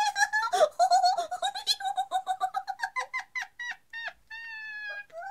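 A woman's high, squeaky put-on laugh, a fast string of short 'hee-hee' notes that slows and spaces out, ending about four seconds in with one longer held note. It is the imp's laughter acted out in a read-aloud story.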